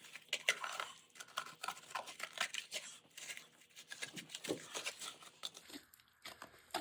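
Plastic hand shovel scraping and digging into dirt, in quick irregular strokes.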